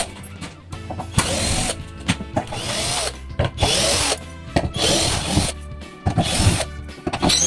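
Cordless drill-driver running in about five short bursts, backing screws out of painted wooden wall boards.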